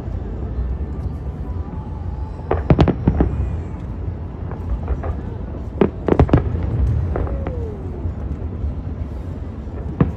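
Aerial fireworks shells bursting: a cluster of sharp bangs about two and a half seconds in and another around six seconds, over a steady low rumble.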